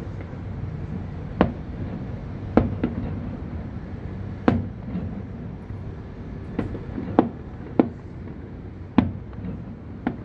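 Aerial fireworks shells bursting: about nine sharp bangs at uneven gaps of roughly a second, some trailing a short echo, over a steady low background rumble.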